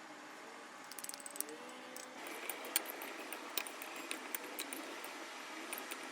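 Salad being tossed with utensils in a bowl: irregular small clinks and clicks of the utensils against the dish, with soft rustling of the vegetables.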